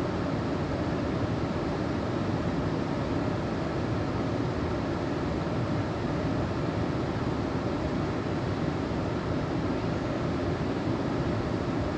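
Steady rushing of flowing creek water.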